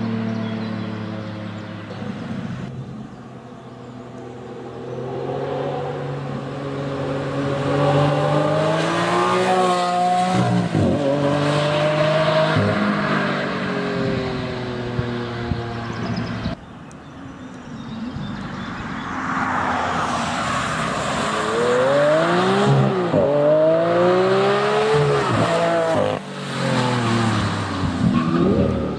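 Lamborghini Aventador LP700-4's naturally aspirated V12 engine accelerating hard. Its note climbs and drops sharply at each upshift, three times in quick succession near the end.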